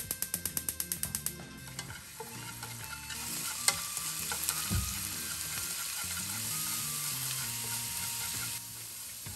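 Gas hob igniter clicking rapidly for about the first second, then minced garlic starting to sizzle in olive oil in a nonstick frying pan while it is stirred with chopsticks, with a sharp tap against the pan a few seconds in.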